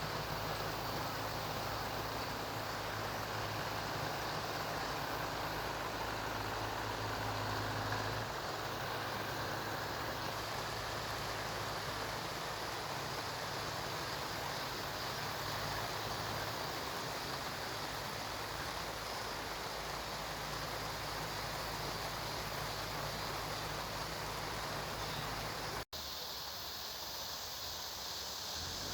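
Steady rushing noise of a rain-swollen stream mixed with the low hum of heavy construction machinery running at a flood-repair site; the hum is strongest over the first several seconds.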